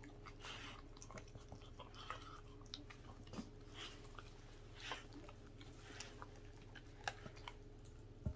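A Welsh corgi chewing and biting at a whole raw chicken in a stainless steel bowl: faint, irregular wet chewing with scattered clicks, a few sharper ones in the second half.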